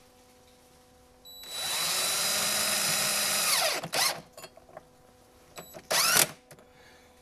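Cordless drill running in two goes. A long run of about two and a half seconds starts a second in and winds down with a falling whine. A few quick blips of the trigger follow, then a second short run about six seconds in, which also winds down.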